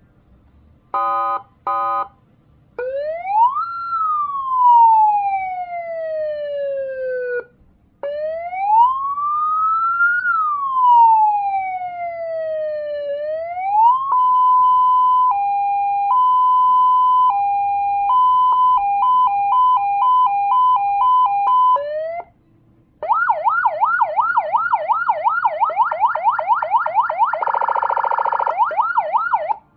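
A CJB 200-watt electronic siren module played through a slim chrome horn speaker, cycling through its tones. Two short blasts come first, then two slow wails that rise and fall, then a two-tone hi-lo that steps slowly and then faster, and finally a rapid yelp with a harsher horn tone layered over it near the end.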